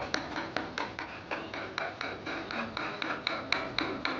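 Hammer tapping a carving chisel into teak wood in a steady rhythm of about four strikes a second, each strike ringing briefly.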